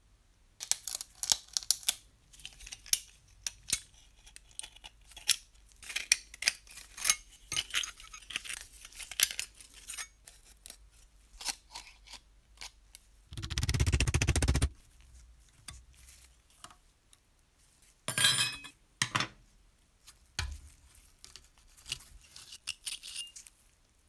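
Small painted sheet-metal parts of a 1950s Joustra toy road roller clicking and clinking as they are handled and taken apart with a screwdriver. Just past the middle comes a louder noisy rasp lasting about a second and a half, and a shorter one a few seconds later.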